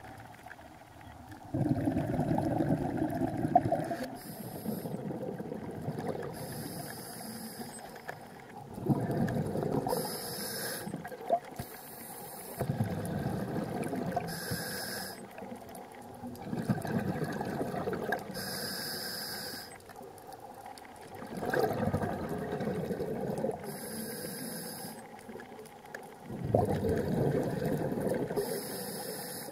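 Scuba regulator breathing underwater: a short hiss on each inhale, then a longer, louder rush of exhaled bubbles, about six slow breaths a few seconds apart.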